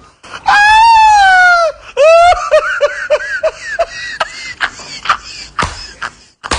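A loud, high-pitched wavering wail lasting about a second, then a rising squeal and a quick run of high laughing notes, about four a second, that trail off into scattered softer sounds.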